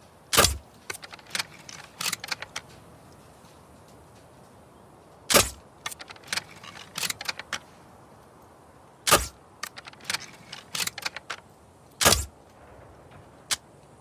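Crossbow firing four times, a few seconds apart: each shot a sharp snap, followed by a run of smaller mechanical clicks and rattles.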